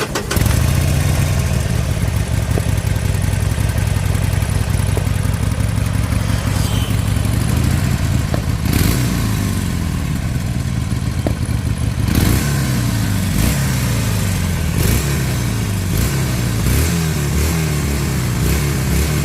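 Harley-Davidson Sportster Forty-Eight's V-twin on its stock exhaust, idling steadily, then revved again and again in short blips from about nine seconds in.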